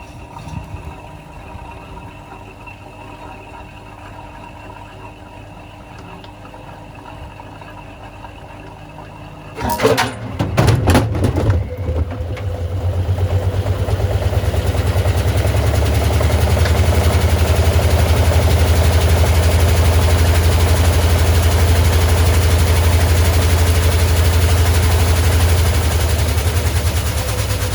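Miele washing machine loaded with a 6-litre water bottle: a quiet motor hum, then a few sharp knocks about ten seconds in, after which the drum speeds up into a loud, steady spin with a deep drone.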